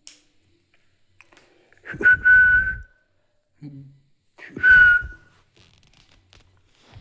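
Two short whistles, each holding one steady pitch for about a second, a couple of seconds apart, with a low rumble under each.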